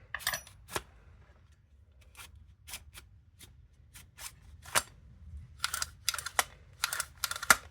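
Irregular metallic clicks and clatter from a small-engine recoil starter being handled as its holding screwdriver is pulled out and the rope is let wind back in. The clicks come singly at first, then in two quick rattling runs with a faint ring in the second half; the sharpest click is near the end.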